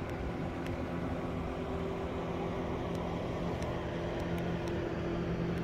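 Bow-mounted electric trolling motor running with its prop engaged, a steady, even-pitched motor hum over a low rumble.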